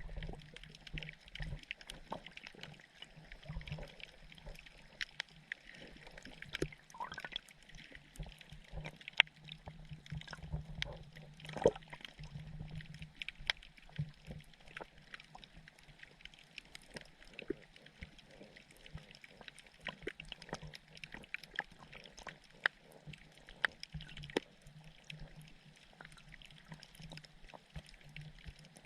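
Sergeant major damselfish making low pulsed calls that come in runs of a second to a few seconds, over a steady crackle of sharp clicks.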